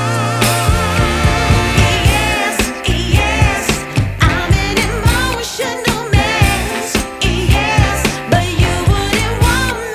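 Background music: a song with a sung vocal over a steady beat.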